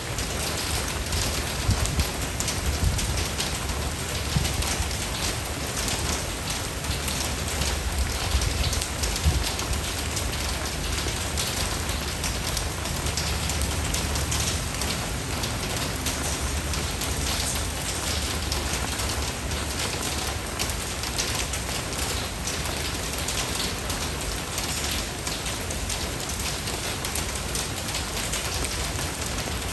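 Steady, heavy rain falling on surfaces: a dense, even hiss of many drops with a low rumble underneath.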